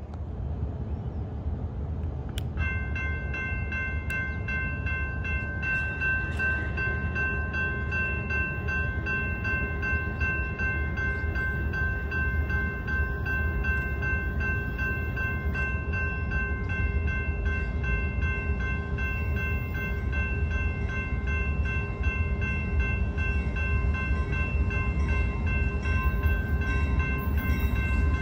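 Low, steady rumble of a freight train approaching from a distance, slowly growing louder. A set of steady high ringing tones starts about two and a half seconds in and carries on until just before the end.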